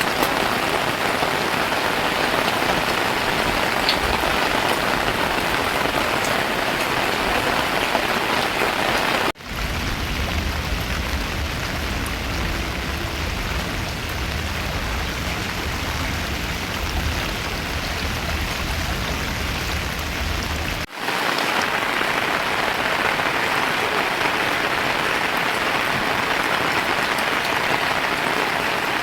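Heavy rain falling and pattering on surfaces, a steady hiss. It breaks off briefly twice where the footage cuts, and the middle stretch carries an added low rumble.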